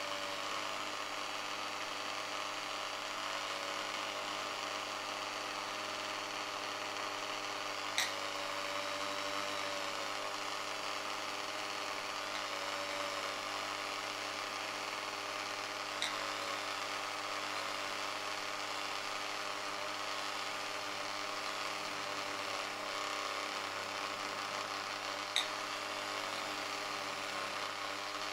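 INGCO mini die grinder's motor running steadily with a high whine, turning an engraving bit through its flexible shaft as the bit lightly scribes letters into a glass sheet. Three short ticks stand out, about a third of the way in, past halfway, and near the end.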